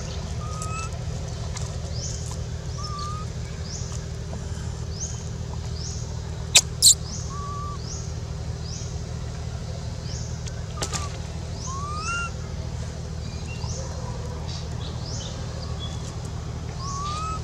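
Birds chirping: short high rising chirps repeat about every half second, with a lower rising call every second or two, over a steady low hum. Two sharp clicks a little before halfway are the loudest sounds.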